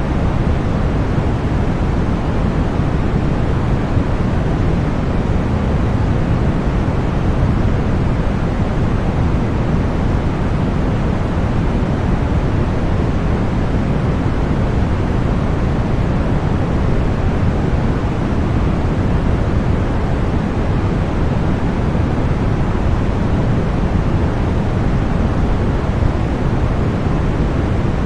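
Continuous generated noise for sleep and tinnitus masking, billed as deep white noise: a steady, even rush, heaviest in the bass and thinning toward the treble, with no change over time.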